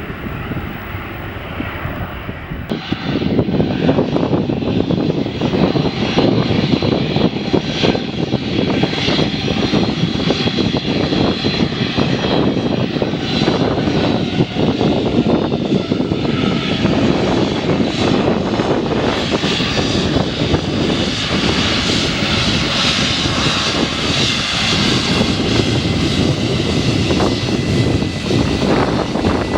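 Jet airliner's engines running loud and close, a steady rush with a high whine on top, getting suddenly louder about three seconds in.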